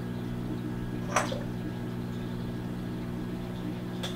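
A squarebill crankbait drops into the aquarium water with one short splash about a second in, over a steady low hum.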